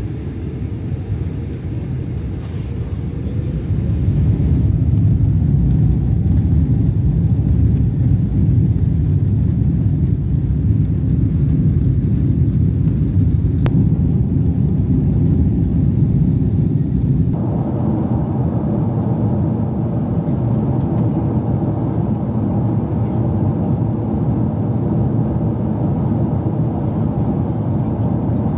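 Steady low rumble of a moving vehicle heard from inside, growing louder about four seconds in.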